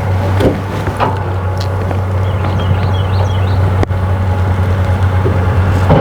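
A steady, low engine drone running unchanged, with a few faint clicks and knocks over it.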